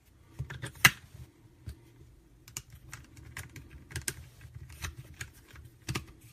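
Batteries being pressed into a small plastic battery compartment: a string of irregular sharp clicks and taps, the loudest about a second in.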